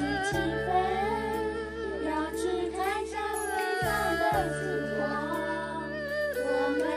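Three girls singing a song together, their voices over low, steady held notes that drop out briefly near the middle.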